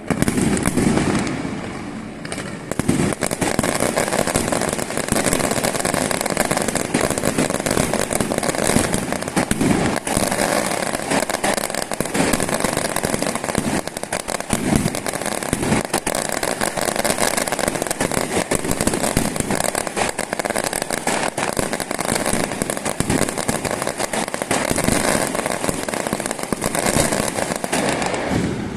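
Fireworks going off in a dense, continuous crackle of rapid pops, with a brief lull about two seconds in.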